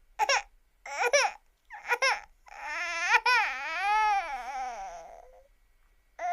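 A baby crying: three short sobbing cries, then one long wail that rises and falls for about three seconds, then another short cry near the end.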